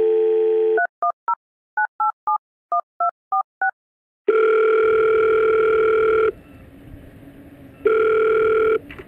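Telephone dial tone that stops under a second in, then ten touch-tone keypad beeps dialling a number, then the ringing tone of the call: one long ring and a shorter second one, with a faint line hiss between them.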